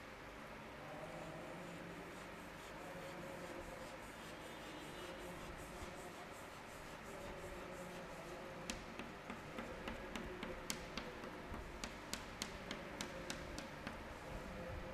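Chalk on a chalkboard: faint scraping, then from about halfway a run of sharp chalk taps, two or three a second, as a row of small arcs is drawn.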